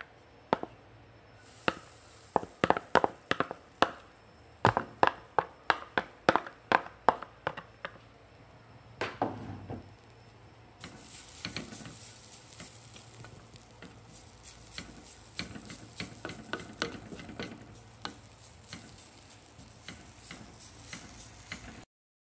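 A run of sharp taps, about two to three a second, as grated coconut is knocked out of a plastic tray into a nonstick pan. Then a wooden spoon stirs and scrapes the dry grated coconut around the pan, with a steady hiss and light scraping clicks as it dry-roasts.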